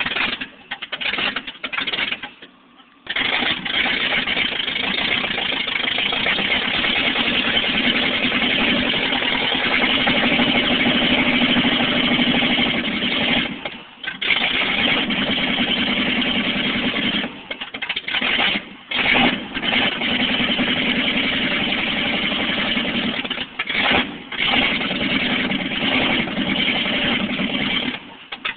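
1969 Dodge Sweptline pickup's engine being started and running, a steady engine sound broken by a near gap about two seconds in and a few short dips later.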